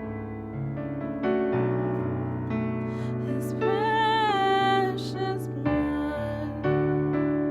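Slow worship music on piano or electric piano, with sustained chords that change every second or so. A voice holds one long wavering note about halfway through.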